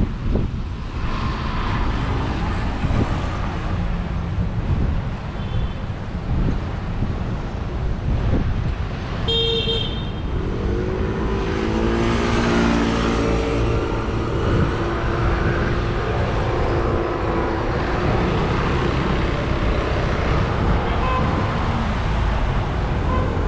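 Street traffic: a steady low rumble of passing cars, with a short car horn blast about nine seconds in and then a passing vehicle engine whose pitch bends up and down for a few seconds.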